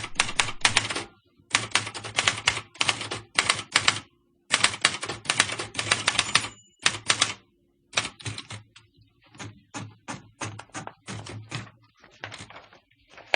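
Typewriter keys striking in fast runs of clacks with short pauses between them, then thinning to slower, softer scattered strikes over the second half.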